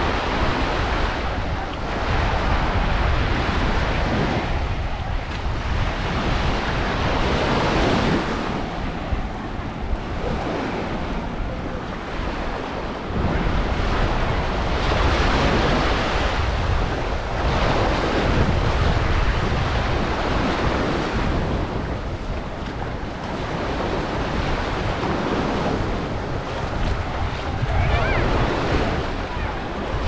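Sea waves breaking and washing up on the shore, swelling and fading every few seconds, with wind rumbling on the microphone.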